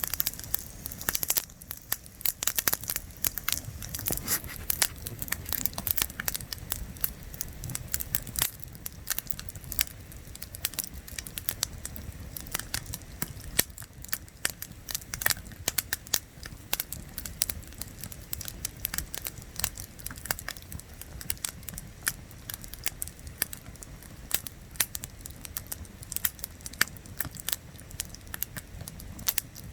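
Wood campfire burning, crackling with a dense, irregular run of sharp snaps over a steady low rumble.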